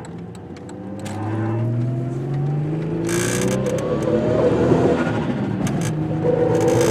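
Car engine accelerating, its pitch rising steadily and getting louder from about a second in. A short hiss comes about three seconds in, and a steady high hum with hiss joins near the end.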